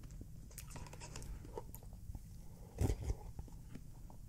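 Quiet mouth sounds of eating a melted vanilla Frosty from a spoon: small wet clicks and smacks, with one louder slurp or gulp a little under three seconds in.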